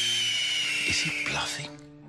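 A hawk's long, raspy screech, falling slightly in pitch and dying away about three quarters of the way through, over background music.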